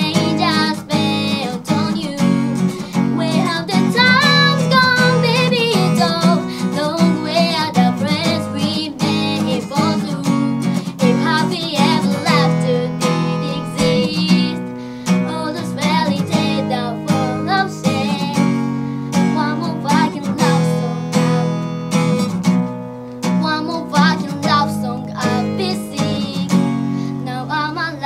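Live acoustic music: an acoustic guitar strumming chords steadily, with a melodic voice line wavering over it at times.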